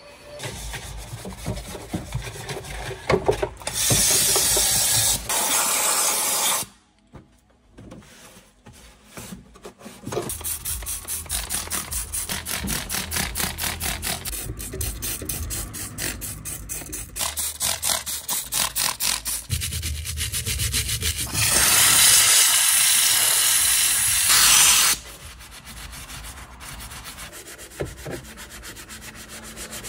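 Scrubbing and wiping on bare sheet-metal floor pan, with rapid back-and-forth strokes and softer brushing of dried mud near the end. Two loud stretches of steam-cleaner hiss cut in, one a few seconds in and one about two-thirds through.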